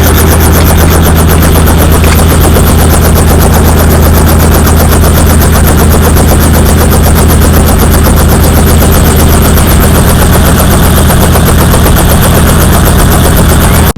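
Helicopter running at close range, very loud: a steady engine drone with the fast, even chop of the rotor blades.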